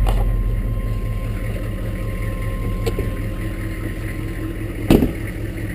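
A 1999 Chevy Suburban's 6.5-litre turbo-diesel V8 idling steadily just after starting, with a low, evenly pulsing diesel rumble. A thump sounds near the end.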